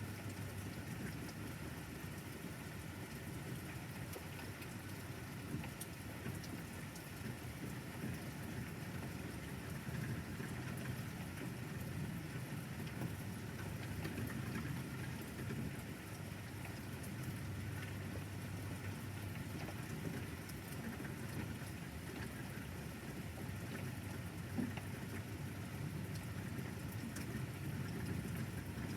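Steady rain falling, with low rumbles of thunder that swell and fade a few times.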